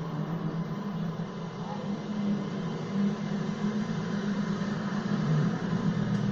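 Car engine running at low speed in street traffic, a steady low engine note over general traffic noise, growing slightly louder near the end.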